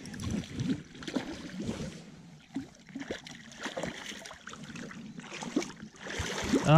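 A hooked zander thrashing at the surface of shallow water as it is reeled to the bank: irregular splashing and sloshing.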